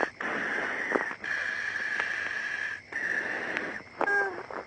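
A man breathing hard and laboured inside a protective suit while a constricting anaconda pins him down. The breaths are long airy hisses with short pauses between them, and a short high-pitched cry comes about four seconds in.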